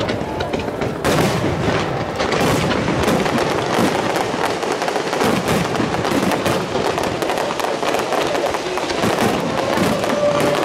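Fireworks display: aerial shells going off in a fast, continuous run of bangs and crackles, getting denser about a second in.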